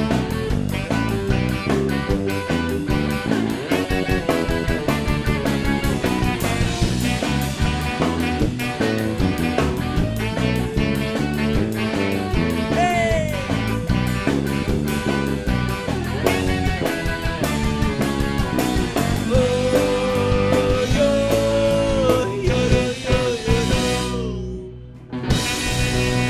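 Rock band music with guitar and drums playing an instrumental stretch, a held melodic line in the later part; near the end the sound briefly drops and goes muffled for about a second before the band comes back.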